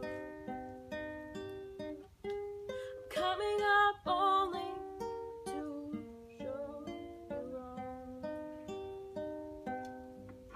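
Acoustic guitar played fingerstyle, a steady run of plucked notes, with a voice singing a short wavering phrase about three seconds in. The playing dies away near the end, as a song closes.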